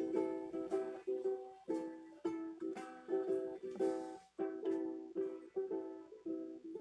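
Acoustic string instrument strumming chords in a steady rhythm, two or three strums a second, each chord ringing briefly before the next, with a short break a little past the middle.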